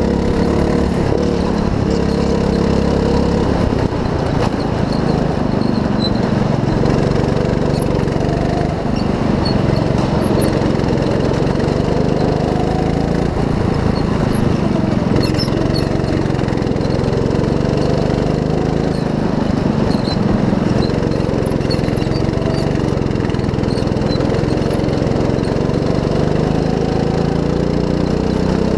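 Go-kart's small petrol engine running hard, its pitch rising and falling again and again as the driver lifts off and accelerates through the corners.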